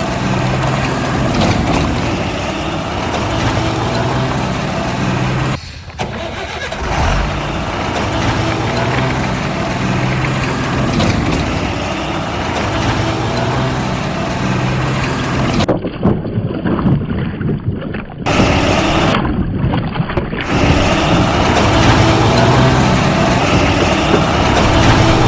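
Vehicle engine running with a steady low hum, its sound changing abruptly a few times.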